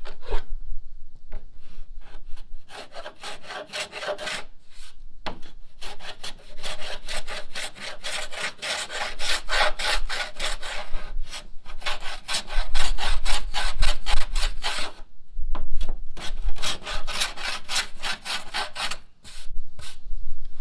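Small hand plane shaving the scarfed edge of a plywood sheet to even out the scarf joint, in quick repeated strokes about four a second. The strokes come in four runs with short pauses between.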